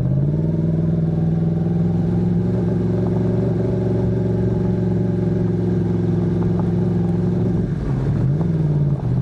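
Yamaha MT-10 SP motorcycle's crossplane inline-four engine running under way at steady revs. The pitch rises a little at the start and holds level. Near the end it briefly drops and comes back up.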